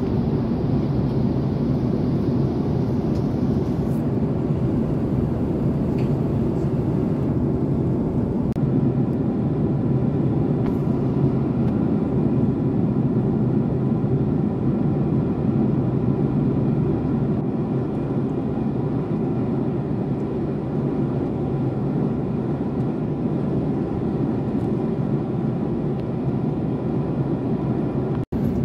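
Steady low drone of engine and airflow noise inside the cabin of a Boeing 767-400ER at cruise, with a faint steady hum above it.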